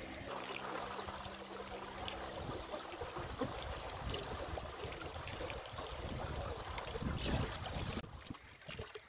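Water running and trickling in a stream. A faint low steady hum sits under it for the first few seconds, and the sound drops suddenly and goes quieter about a second before the end.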